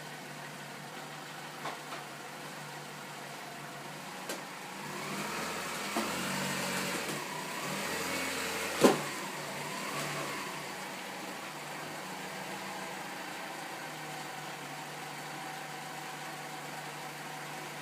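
Dodge Stratus 2.4-litre four-cylinder engine running steadily, with the revs rising and falling for a few seconds midway as the car is driven up onto ramps. A single sharp knock comes just before nine seconds in.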